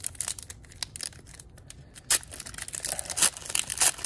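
Plastic wrapper of a basketball trading card pack being torn open from the top and peeled down, a run of crinkling and tearing crackles that grows louder and busier about halfway through.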